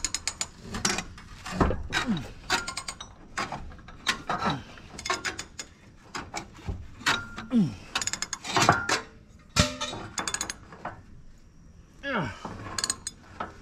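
A socket ratchet clicking in quick bursts as it is worked back and forth on a large, stubborn nut on an old disc harrow, with a few short falling squeaks.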